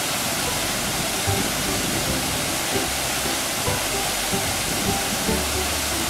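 Waterfall rushing steadily, an even hiss of falling water with no breaks.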